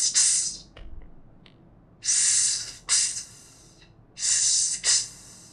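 A man's long hissed 's' cut off by a sharp 't' tongue flick, the English /st/ sound made in one breath, three times over.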